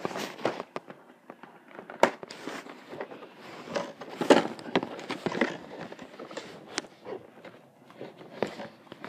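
Scissors snipping the plastic ties that hold a Barbie doll in her box, with the packaging handled: irregular snips, clicks and crackling plastic rustle, including a sharp click about two seconds in.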